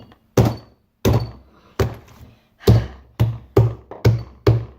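A big mass of slime repeatedly slapped and dropped onto a table: about eight heavy, dull thuds, coming faster toward the end.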